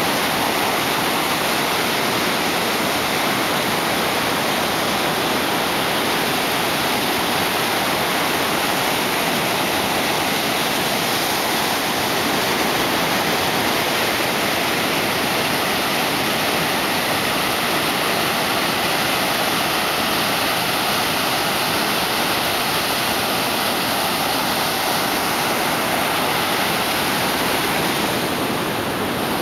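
Ocean surf breaking over rocks and washing up a sandy beach: a steady, unbroken rush of water.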